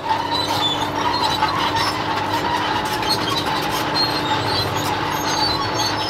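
Cartoon sound effect of a tracked crane driving off: a steady machine noise of engine and crawler tracks, with a held hum and scattered small high squeaks.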